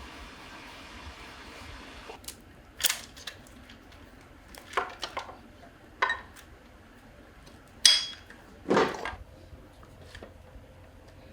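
Metal tools and parts being handled on a workbench: five sharp clinks and clanks at uneven intervals, the loudest, with a short ring, about eight seconds in.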